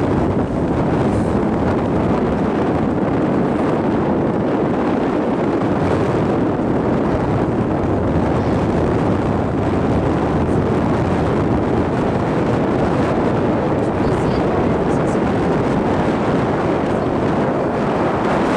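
Steady wind buffeting the microphone on a catamaran under way, a continuous rushing noise.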